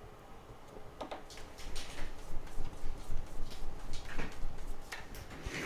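A run of light, irregular clicks and taps, several a second, starting about a second in and stopping shortly before the end.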